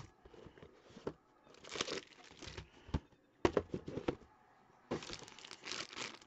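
Packaging being opened by hand: a cardboard trading-card box handled and torn open in irregular rustles and sharp tears, then a foil bag crinkling near the end.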